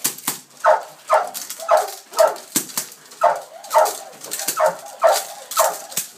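Young Belgian Malinois barking over and over, about two short barks a second, with a few sharp clicks or knocks among the barks.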